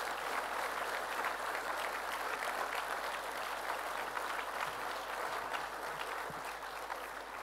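Audience applause: many people clapping together in a dense, steady patter that tapers off near the end.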